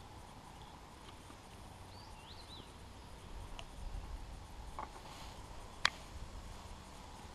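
Faint bird chirps over quiet open-air background, then low rustling and handling noise as the angler shifts his body and rod, with a few light clicks and one sharp click about six seconds in.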